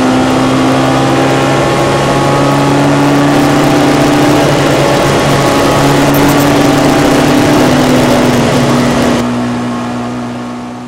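Racing Ford Anglia's engine heard from inside the cockpit, running hard at high, near-constant revs with a few small dips in pitch. The sound fades away over the last couple of seconds.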